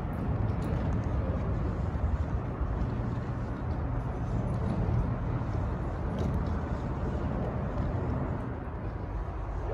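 Steady low rumble of wheelchair wheels rolling over a concrete pier deck, with a few faint clicks.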